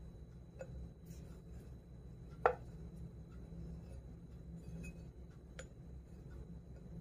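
Wooden rolling pin clicking and knocking against a metal rolling board as small puris are rolled out: a few light clicks and one sharper knock about two and a half seconds in, over a faint steady low hum.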